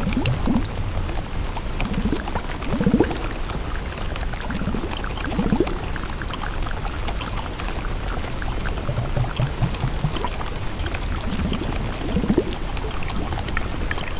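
Steady running, pouring water with a short gurgle every few seconds.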